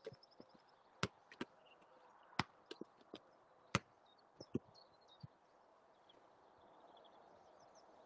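Faint, irregular knocks of a football being struck with the side of the foot, about a dozen in the first five seconds, then they stop.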